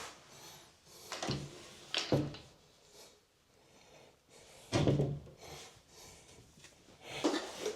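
A few separate knocks and clunks of objects being handled and set down, like a cabinet door or drawer being moved, with quiet gaps between them.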